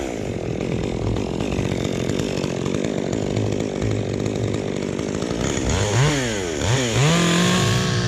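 Chainsaw running at full throttle, cutting into a cypress tree. About six seconds in, the engine pitch drops and climbs back twice, then holds high.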